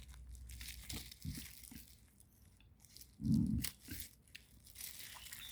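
Parcel packaging being handled and torn open: irregular crinkling, tearing and crackling with sharp little clicks, and a short dull thud about three seconds in.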